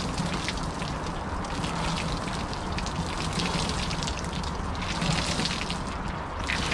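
Ice water overflowing the rim of a wheelie bin and splattering onto the ground as a man sinks lower into it: a steady patter of drips and splashes.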